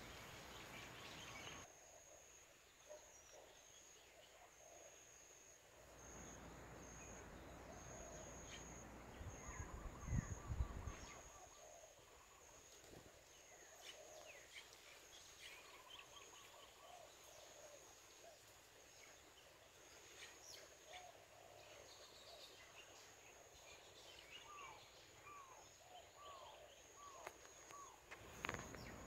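Faint garden ambience: a steady high insect trill runs throughout, with scattered bird calls, likely common mynas, that come thicker toward the end. A gust of wind buffets the microphone about ten seconds in.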